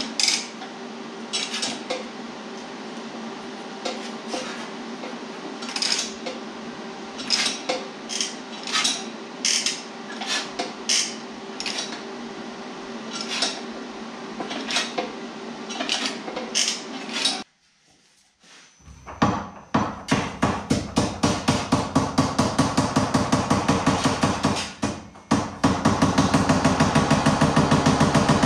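Sheet metal being worked with hammer blows. Irregular metallic taps sound over a steady hum, then, after a brief break, a fast, even run of pounding strokes that quickens near the end.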